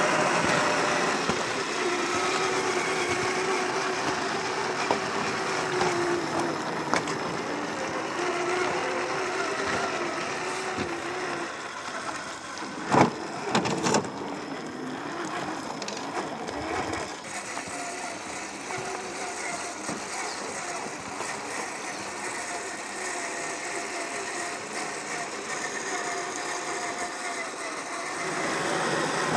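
Traxxas TRX4 RC crawler's brushed electric motor and drivetrain whining, the pitch wavering up and down with throttle as it crawls. Two sharp knocks stand out about halfway through.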